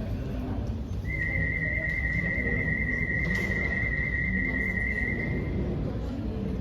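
Audiometer test tone: a single steady high-pitched tone that starts about a second in and cuts off after about four and a half seconds, presented as the sound stimulus in a behavioural hearing test.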